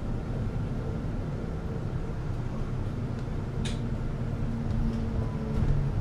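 City bus engine idling at a stop: a steady low rumble with a faint hum, and one brief sharp hiss about three and a half seconds in.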